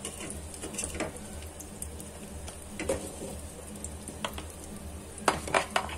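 Perforated steel skimmer lifting fried arbi slices out of hot mustard oil in a kadhai. The oil sizzles faintly while the spoon clicks and scrapes against the pan, with a quick run of sharper clicks near the end.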